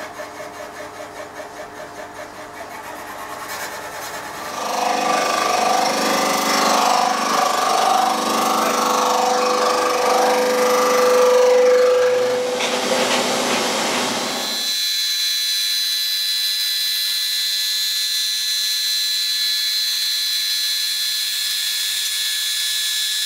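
A hand-turned valve-seat cutter scrapes round the seats of an aluminium cylinder head, pulsing a few times a second. About four seconds in, a milling machine starts skimming the head face, a loud machining noise. About fifteen seconds in, the noise settles into a steady high whine.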